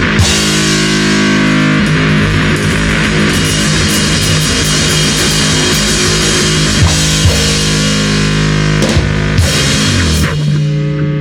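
Live rock band playing loud distorted electric guitar with bass and drums, with cymbal crashes; near the end it thins to one sustained ringing chord.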